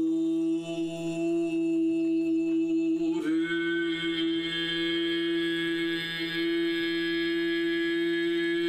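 A man's voice intoning a sacred word in ritual as one long, steady note at a single pitch, the vowel changing and growing brighter about three seconds in. The word is plausibly the Hebrew 'Ateh', 'thou art'.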